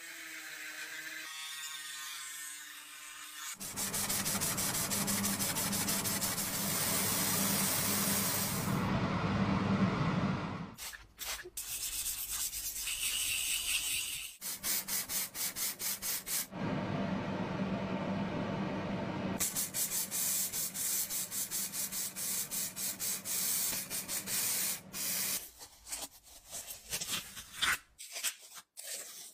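Abrasive rubbed over the tinplate hull of a toy submarine: a stretch of steady scrubbing, then rapid back-and-forth sanding strokes. It opens with a few seconds of a rotary tool's sanding drum whining against the metal.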